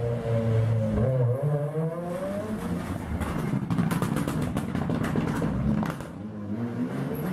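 Mitsubishi Lancer Evolution rally car engine revving hard as it works through a tight corner. Its pitch rises about a second in, and a run of sharp crackles follows as the car passes close. A second rally car's engine comes in near the end.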